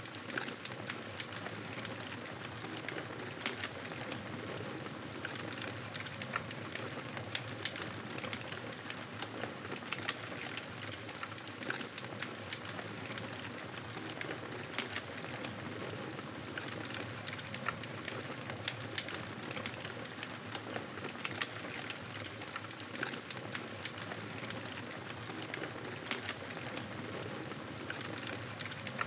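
Campfire crackling: a steady hiss of burning wood with frequent small sharp pops and snaps.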